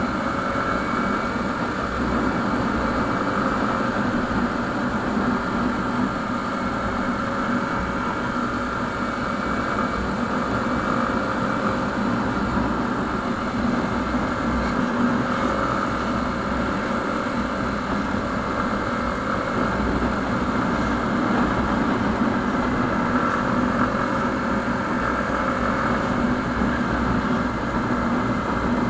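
Motorcycle engine running steadily while cruising, mixed with wind and road noise on the microphone.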